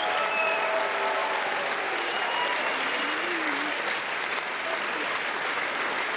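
Studio audience applauding steadily, with a few voices calling out over the clapping.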